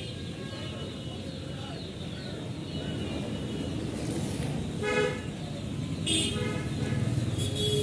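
Road traffic: a steady low rumble of passing vehicles, with several short vehicle horn toots in the second half.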